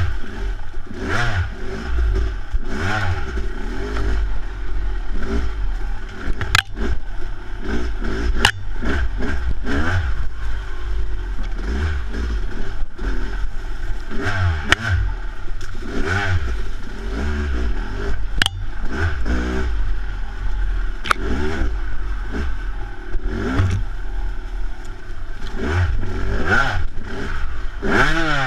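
Yamaha YZ250 two-stroke dirt bike engine revving up and falling back over and over on the trail, with a few sharp knocks.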